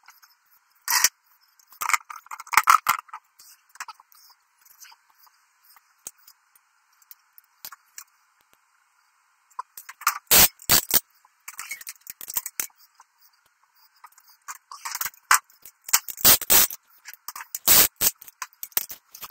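Metal bar clamps being loosened and lifted off a glued wooden frame: sharp metallic clacks, rattles and scrapes in bunches, about a second in, around two to three seconds, around ten to eleven seconds, and again between fifteen and eighteen seconds.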